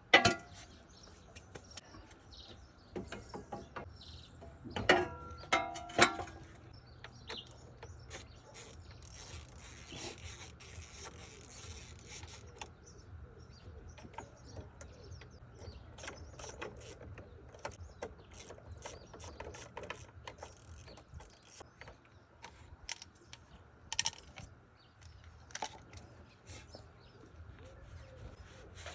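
Hand tools and car parts being handled during a radiator refit: scattered clicks and knocks, with a few louder clanks around five to six seconds in and a brief hiss around ten seconds in, over a faint steady hum.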